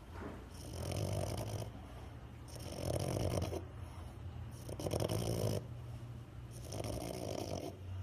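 French bulldog snoring as it dozes off, four drawn-out snores about two seconds apart.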